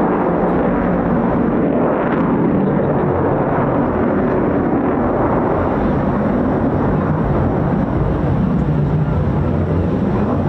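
Eurofighter Typhoon's twin EJ200 jet engines during a display pass: loud, steady jet noise.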